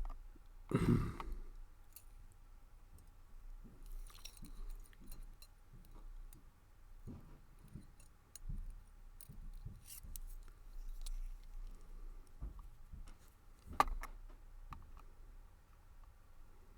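Small metal clicks and taps from handling the pins, springs and tools while reloading a brass padlock's pin chambers, with a louder knock about a second in and a sharp click near the end.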